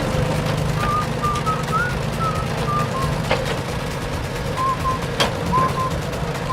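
A vehicle engine running steadily at a low rumble, with a string of short, high chirps over it and a couple of sharp clicks.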